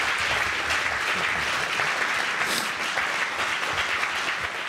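Audience applauding, a dense steady clapping that thins slightly near the end.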